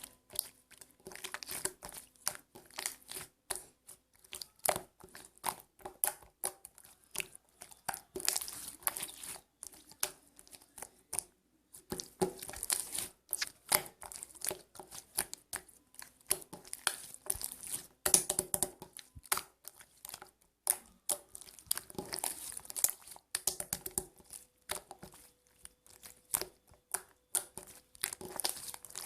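Slime being squeezed, folded and stretched by hand, making a rapid, irregular stream of clicks and crackles.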